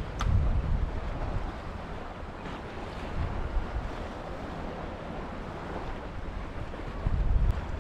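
Wind buffeting the microphone over the wash of gentle sea water, with gusts about half a second in and again near the end. A faint click sounds near the start and another near the end.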